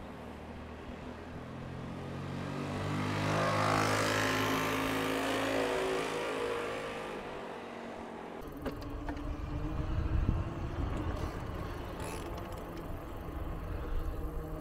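A motor vehicle passes by: its engine and tyre noise swell to a peak about four seconds in, then fade away. A little after eight seconds the sound changes abruptly to a steady low rumble.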